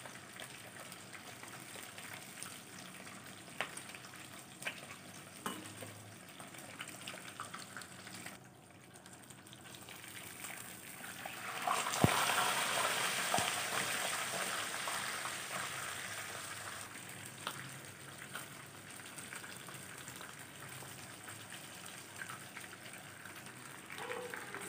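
Whole fish shallow-frying in hot oil in a frying pan, a steady sizzle with scattered crackles. About halfway through the sizzling swells loud, with a sharp click, as the fish is handled with metal tongs, then settles back.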